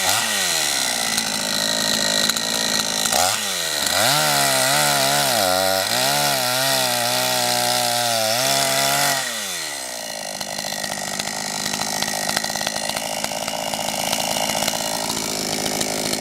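Carver two-stroke petrol chainsaw engine. It drops from a rev at the start, revs up again about three seconds in and holds high for about six seconds with its pitch wavering, then falls back to a steady idle.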